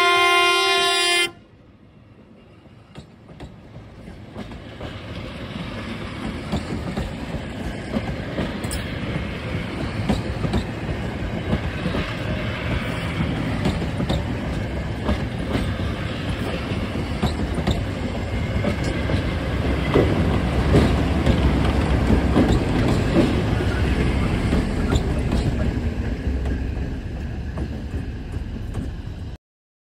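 A train's multi-note air horn sounds and cuts off about a second in. Then the stainless-steel Nebraska Zephyr passenger cars roll past: a rumble with quick wheel clicks over the rail joints that builds for several seconds, stays loud through the middle, and stops abruptly near the end.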